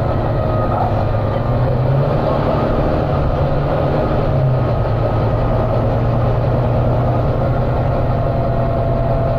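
Volvo B9TL double-decker bus's six-cylinder diesel engine working hard at speed, heard from inside the bus: a steady, loud engine drone with road and body noise over it, the engine thrash the bus is known for.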